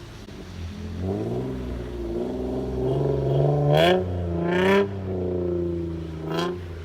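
Infiniti G35 coupe's 3.5-litre VQ35DE V6, loud through test pipes and a Bosal cat-back exhaust, revving hard under wheelspin. The revs climb to a sharp peak about four seconds in and again about a second later, dropping suddenly after each, then rise briefly once more near the end.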